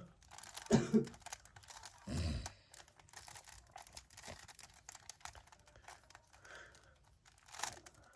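Plastic Rubik's cube being twisted by hand, its layers clicking and rattling in quick, irregular turns. A brief voice sound comes about a second in.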